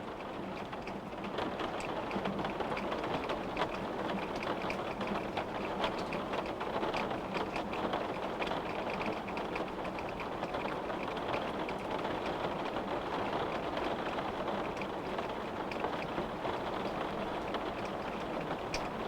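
Steady rain falling, with many small drops ticking against a window pane.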